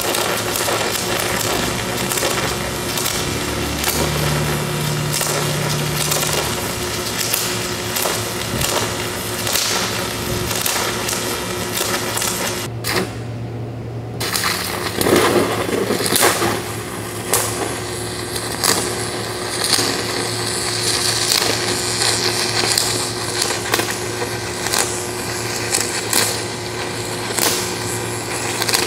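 A 3/4-inch Cor-Met F25 stick electrode burning at 1000 amps DC, its arc crackling and sizzling steadily as the bead is laid. The crackle drops out for about a second near the middle.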